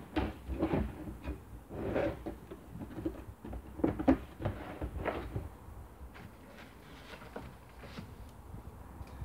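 Hollow plastic clunks and scraping as hands handle the top of a plastic water butt, several knocks in the first five seconds and quieter after.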